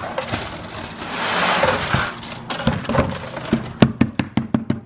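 A bucket of freshly mixed concrete dumped into a form: a gritty rushing slide of wet concrete and gravel, followed near the end by a quick run of about eight sharp knocks.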